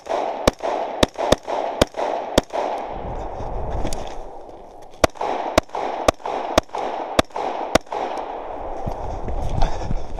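Rifle shots fired in quick succession, heard close up from the shooter's position. There are two strings of about six shots each, roughly half a second apart, separated by a pause of about two and a half seconds.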